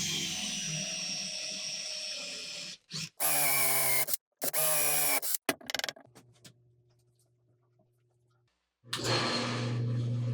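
A small electric power tool motor running in several stretches, cut off abruptly between them. Its pitch shifts under load, and a fainter steady hum shows in the middle gap.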